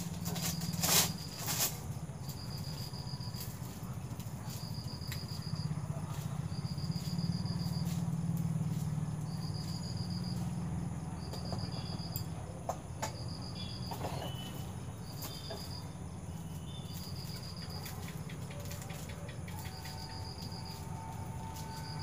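A cricket chirping in short pulsed trills every second or two, over a steady low hum, with a few faint knocks about halfway through.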